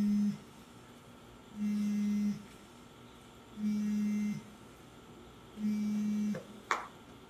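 Mobile phone on vibrate: the motor buzzes in pulses of about three-quarters of a second, repeating every two seconds, the pattern of an incoming call.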